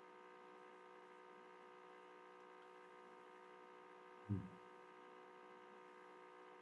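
Near silence with a faint, steady electrical hum, and one brief low sound about four seconds in.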